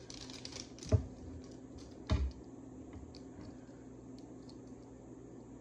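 Small clicks and knocks from handling a helmet visor and screwdriver while the old tear-off spud is removed: a sharp knock about a second in, a duller knock a second later, then faint scattered ticks.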